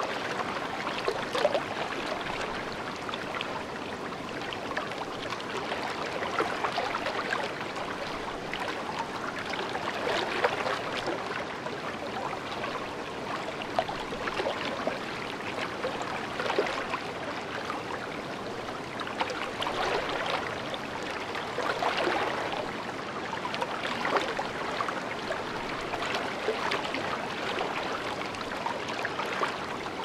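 A river flowing gently, with a steady, unbroken rush of water.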